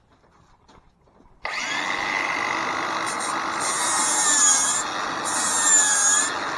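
Angle grinder starting up about a second and a half in and grinding the rusty steel sledgehammer head. Its whine dips and recovers several times as it is pressed into the work.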